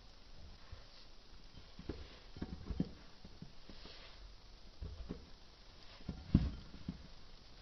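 Clumps of kinetic sand crumbling and dropping into a glass of sand and onto a wooden tabletop: a scatter of soft, dull thuds, the loudest about six seconds in.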